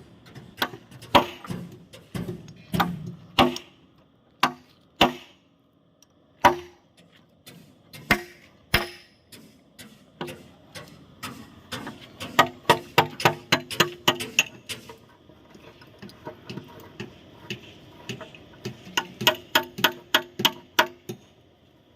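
Hammer blows on steel, struck one at a time at first and then in quick runs of about three to four strikes a second, each with a short metallic ring.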